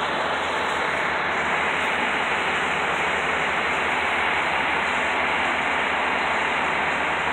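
Steady, even rushing din of idling fire-apparatus engines.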